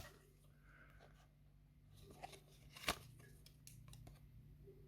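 Near silence: room tone with a few faint clicks and rustles of paper trading cards being handled, the clearest about three seconds in.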